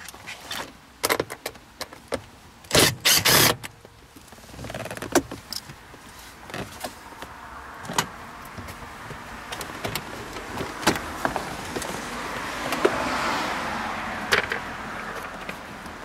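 Hand work on a car's plastic interior trim: scattered clicks, knocks and rattles as the center console screws are undone and the plastic console is worked loose. There is a loud scraping burst in two parts about three seconds in.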